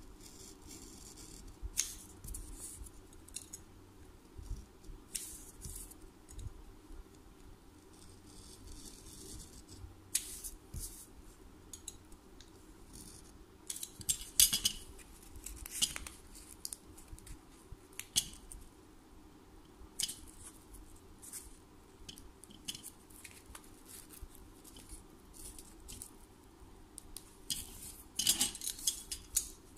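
Snap-off utility knife cutting a slot into a glitter sticker sheet on a board: scattered short scrapes and clicks of the blade, coming thicker about halfway through and again near the end, over a faint steady hum.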